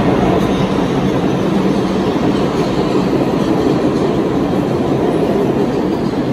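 Bombardier R62A subway train pulling out and running away down the tunnel: a steady rumble of steel wheels on the rails that grows slightly fainter toward the end.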